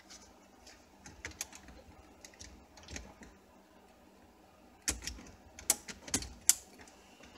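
Hard plastic clicking and tapping as a car stereo head unit and its trim ring are pressed into the dash opening: scattered light clicks, then a few sharper knocks about five to six and a half seconds in.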